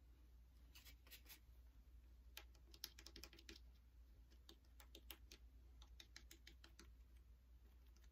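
Faint, irregular light taps and clicks: a folded baby wipe dabbing acrylic paint onto a small wooden cutout lying on a cutting mat.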